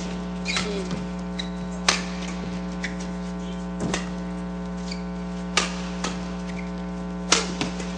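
Badminton rally in a mixed doubles match: five sharp racket hits on the shuttlecock, spaced about one and a half to two seconds apart, over a steady electrical mains hum.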